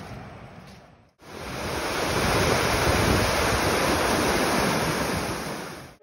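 Loud, steady rush of turbulent water, like a waterfall or fast stream. It cuts in about a second in, after a fainter hiss fades out, and fades away at the end.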